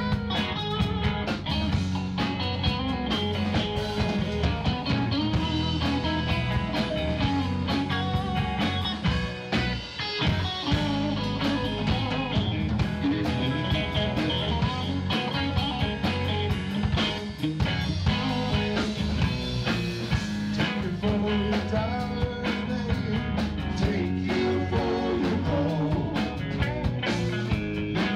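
Live rock band playing a song: electric guitars, electric bass and a Yamaha drum kit, with the drums hitting steadily all through.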